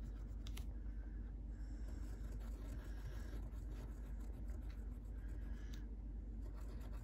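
Pencil scratching on paper in several short bursts of scribbling, each about half a second long, as small dots are filled in, with a couple of light ticks of the tip.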